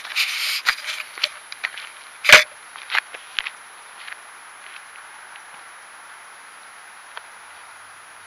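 Clicks and knocks of a camera being handled and set down, with one loud knock about two seconds in and a few more shortly after, then only a faint steady hiss.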